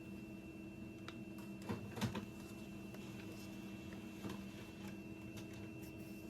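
A steady electrical appliance hum with a thin high whine over it, plus a few soft clicks about one and two seconds in.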